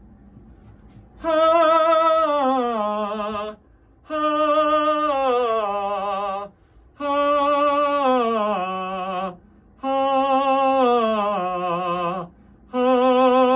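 A man singing a vocal warm-up exercise through a face mask: five falling sung phrases, each about two and a half seconds long with a slight vibrato, separated by short pauses for breath.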